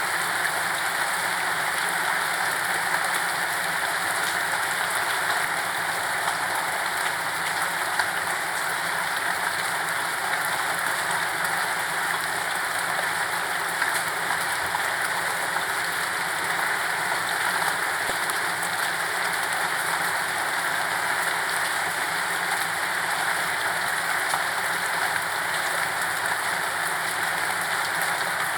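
Steady rain falling without pause, an even hiss with fine drop patter and no thunder.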